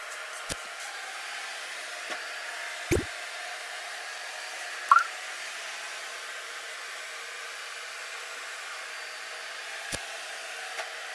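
iClebo G7 Plus robot vacuum running with a steady whirring fan hiss, with a few light knocks and a short rising chirp about five seconds in.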